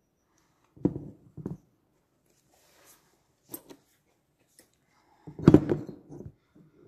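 Chainsaw engine parts and tools handled on a work table: two dull knocks about a second in, a couple of faint clicks, then a louder clatter of handling about five and a half seconds in.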